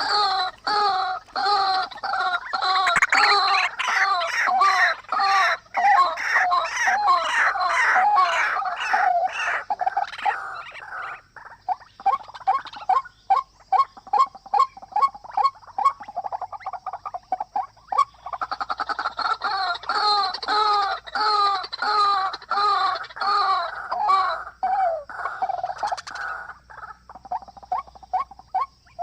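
Bird calls in a fast, unbroken run of short repeated notes, softer for several seconds in the middle and loud again for a stretch after that.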